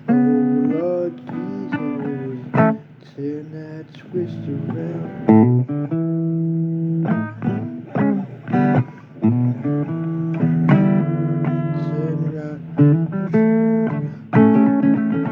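Blues guitar playing an instrumental passage: plucked, held notes, some of them bent up and down in pitch.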